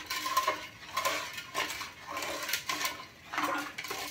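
A utensil stirring milk in a large metal cooking pot, scraping and knocking against the pot's sides and bottom in repeated strokes about twice a second, each stroke making the pot ring briefly.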